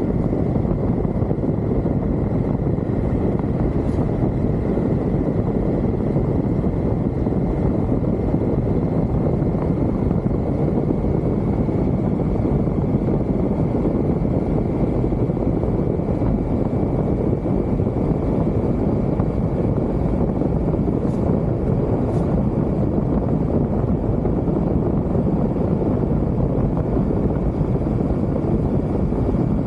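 Triumph Tiger motorcycle cruising at a steady pace: a continuous rumble of engine, road and wind noise on the bike's microphone, with a faint steady high whistle above it.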